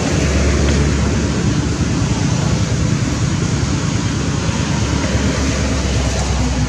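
Steady wind noise on the microphone: a continuous low rumble with hiss over it.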